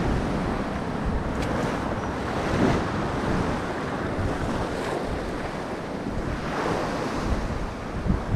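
Sea surf surging and breaking against the rocks below, rising and easing in several swells, with wind buffeting the microphone.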